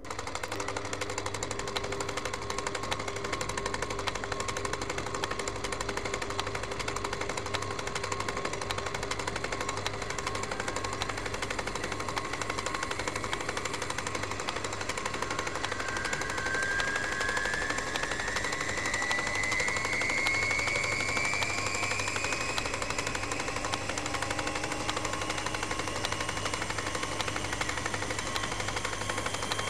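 Steady machine rattle with a low hum and several steady tones, and a whine that rises in pitch over several seconds about halfway through.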